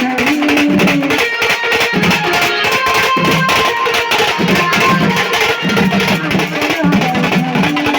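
Live band music: an instrumental passage with a plucked, guitar-like lead melody over fast, dense percussion.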